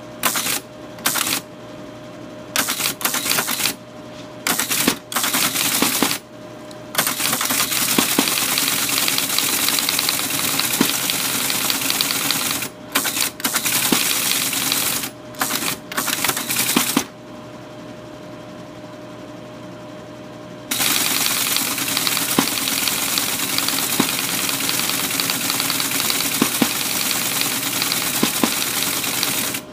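Teletype Model 33 ASR printing at speed, its typing mechanism clattering. It comes in short bursts at first, then in long continuous runs as the assembler's output prints. In a pause of a few seconds past the middle, the machine's motor hums steadily.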